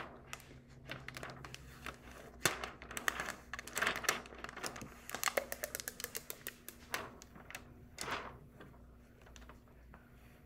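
Irregular sharp clicks and light crackles from handling clear rhinestone transfer tape and loose rhinestones on a wooden tabletop, thickest in the middle and thinning out near the end.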